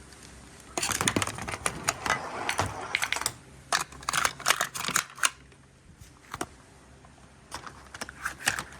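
Marbles clicking and clattering against each other and the track of a marble run: a dense run of rapid clicks from about a second in until about five seconds, then a few scattered clicks near the end.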